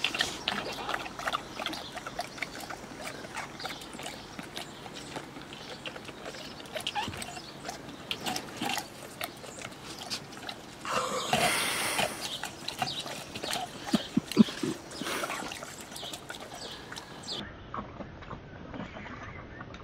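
Two golden retrievers licking and chewing shaved ice on a glass tabletop: a run of irregular wet licks and small ice crunches, with a louder slurping rush about eleven seconds in.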